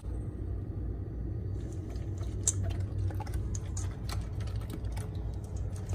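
A Doberman eating from a stainless steel bowl: irregular small crunches, clicks and wet mouth sounds of chewing and of food knocking against the metal, starting about a second and a half in, over a low steady hum.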